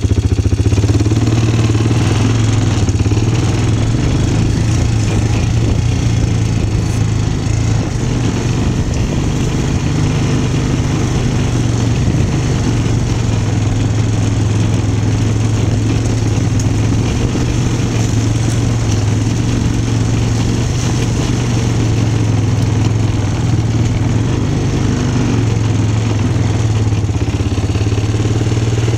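ATV engine running steadily at an even pitch as the four-wheeler is ridden along.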